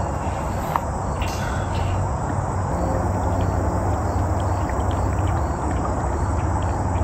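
Crickets chirping steadily over a low, steady rumble.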